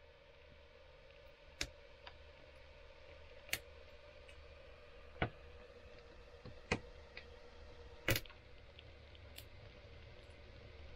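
Wood fire burning in a brick stove, quiet, with sharp single crackles about every one to two seconds. A faint steady tone runs underneath.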